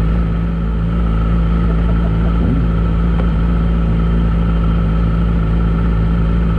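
Sportbike engine idling steadily while the bike sits stationary.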